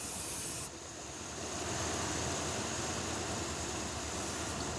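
Aerosol can of brake cleaner spraying in a steady hiss, starting about a second in, over the idling 350 V8 of a 1981 Chevrolet Corvette. The spray is being played around the intake to find a vacuum leak, which would show as a change in the rough, inconsistent idle.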